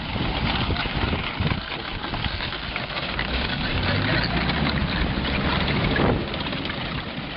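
M5A1 Stuart light tank's twin Cadillac V8 engines running close by. The engine note grows stronger from about four seconds in and eases off just after six seconds.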